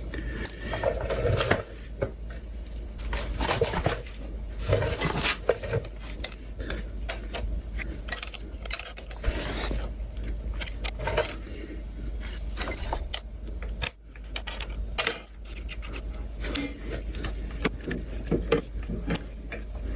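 Metal tools, bolts and gear-lever parts being handled: scattered clinks, rattles and light knocks throughout, over a steady low hum.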